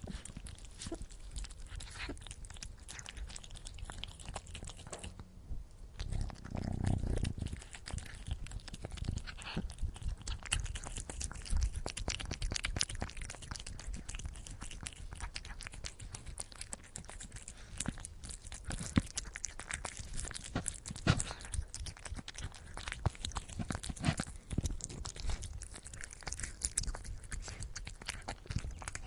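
A domestic cat eating wet food: quick, irregular wet chewing and lip-smacking clicks, with a low purr underneath. The low sound swells for a moment about six to seven seconds in.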